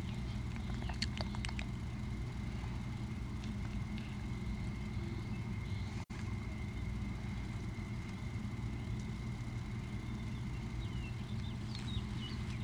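Steady low rumble of outdoor background noise with a faint steady high whine over it, and a few faint paper rustles about a second in as a laminated menu is handled. The sound drops out for an instant about six seconds in.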